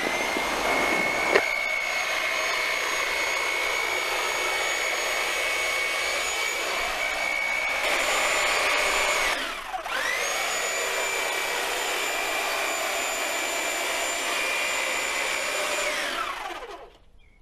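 Corded electric hedge trimmer running with a steady high motor whine as it trims a conifer hedge. About halfway through the motor briefly drops in pitch and spins back up, and near the end it winds down to a stop.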